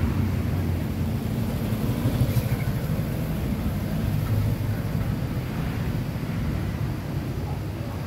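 A motorcycle engine running as the bike passes close and rides off down the lane, its low rumble slowly fading.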